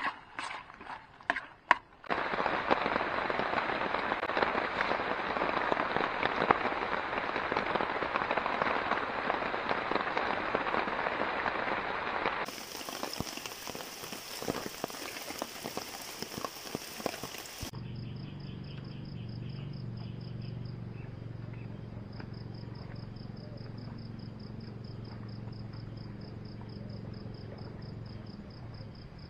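Squid frying in a pan on a camp stove: a few scrapes of the spoon, then a steady crackling sizzle for about ten seconds. Later the sizzle gives way to crickets chirping in a fast, even pulse over a low hum.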